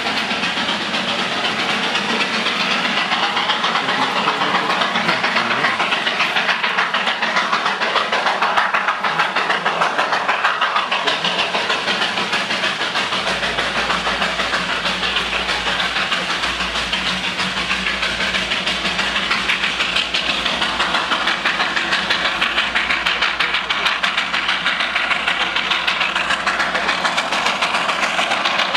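Darjeeling Himalayan Railway 0-4-0 saddle-tank steam locomotive working steadily, its exhaust beats and steam hiss running on without a break.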